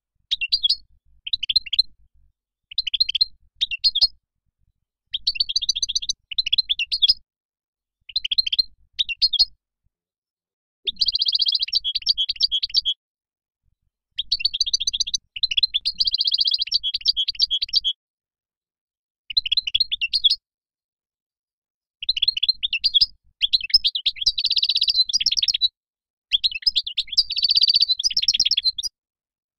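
European goldfinch singing: about nine phrases of rapid, high twittering notes, each one to four seconds long, separated by short silent gaps.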